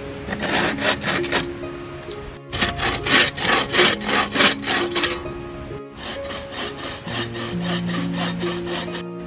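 Hand saw cutting through a thin wooden pole in quick back-and-forth strokes, a rasping scrape that is loudest in the middle stretch. Soft background music with held notes plays underneath.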